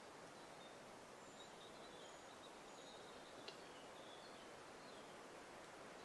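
Near silence: faint steady hiss with scattered faint, high bird chirps and whistles, and one sharp click about three and a half seconds in.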